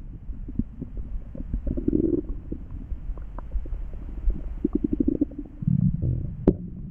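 Stomach growling: a long low rumble full of small gurgling pops, swelling louder about two seconds in and again in the last couple of seconds, with one sharp click near the end.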